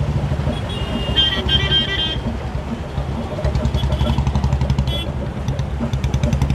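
Riding two-wheeler in busy traffic: a steady low rumble of wind on the microphone and engine noise. A vehicle horn honks several short times about a second in, with single short toots near the middle.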